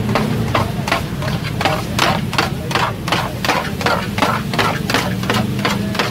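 Metal spatula chopping and scraping chicken on a flat metal griddle: a rapid, even clatter of about four to five strikes a second, over a steady low hum.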